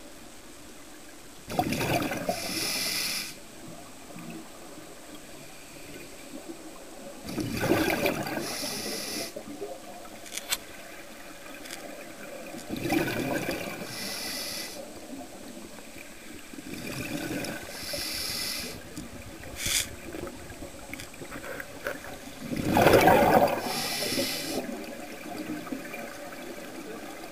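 A scuba diver breathing through a regulator underwater, heard through the camera housing: five breaths about every five seconds, each a rush of exhaled bubbles with the regulator's hiss, over a steady background hiss.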